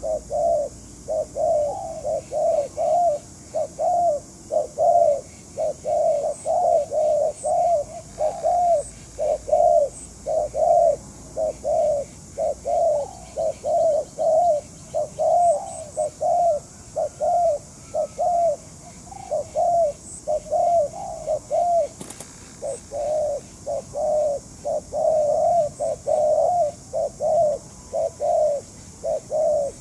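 Spotted doves cooing: a steady string of short, low coos, about one and a half a second, with only brief pauses between runs.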